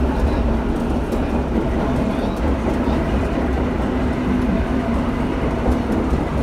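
Vintage New York City IRT subway train running through a tunnel, heard from inside the front car: a steady, heavy rumble of wheels on rail with a few faint clicks over the rail joints.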